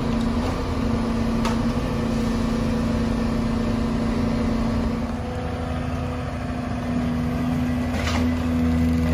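Diesel engine of a Volvo tracked excavator running steadily, with a faint knock about a second and a half in and another near the end.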